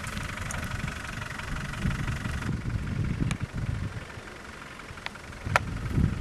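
Land Rover Discovery's 200Tdi turbodiesel engine running at low revs as the vehicle crawls along an off-road track. A few sharp clicks come near the end.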